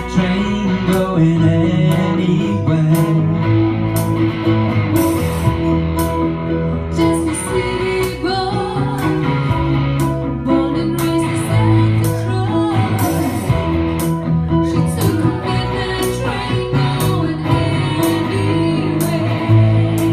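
A rock band playing live: guitar over a bass line, with steady drum and cymbal hits.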